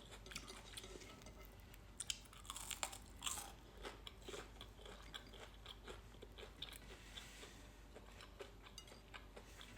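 A person chewing crunchy food close to the microphone, with faint crackling crunches throughout and a louder run of crunches a little under three seconds in.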